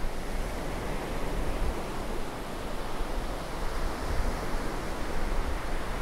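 Surf on a sandy Caribbean beach: small waves breaking and washing up the shore in a steady, continuous wash of noise, with a low rumble of wind on the microphone underneath.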